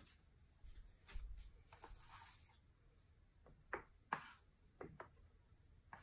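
Near silence with faint small handling sounds: a soft rustle, then a few light clicks and taps.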